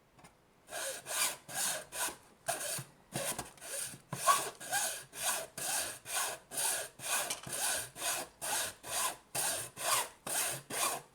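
A saw cutting through the plastic casing of a Nintendo Switch AC adapter in steady back-and-forth hand strokes, about two a second. It starts about a second in and stops near the end.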